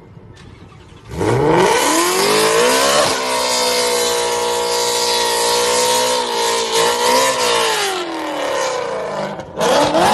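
Ford Mustang engine revving hard: the pitch climbs steeply about a second in, holds high and steady for several seconds, falls away around eight seconds, and climbs sharply again near the end.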